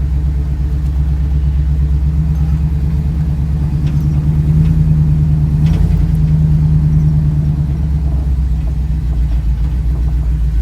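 1972 Chevrolet Camaro RS under way, its engine and road noise making a steady low rumble heard from inside the car, a little stronger for a few seconds mid-way.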